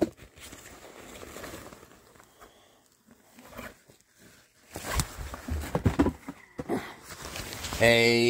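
Rustling and handling of packaging as the next item is taken out and unwrapped, with louder crinkles and knocks about five to seven seconds in. A man's long, steady 'hmm' starts near the end.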